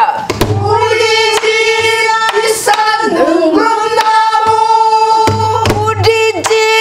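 Women singing a Korean folk song in long, drawn-out notes that bend and waver in pitch, with sharp percussive taps keeping time.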